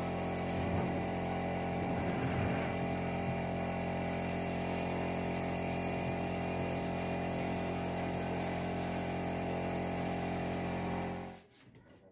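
Steady hum of a running air compressor feeding a paint spray gun, with the gun's spray hiss strongest in the first few seconds. It all cuts off suddenly near the end.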